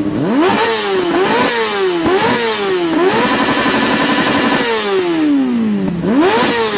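Small pit bike engine revved while standing still: three quick throttle blips, then held at high revs for about a second and a half before the revs fall away, and revved again near the end.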